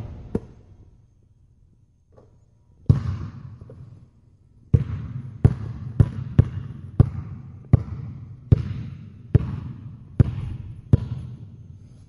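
A basketball bouncing on a hard floor, each bounce with a short echo. After a thump and a sharp knock at the start and a single bounce about three seconds in, it is dribbled steadily for about ten bounces, roughly one every 0.7 seconds.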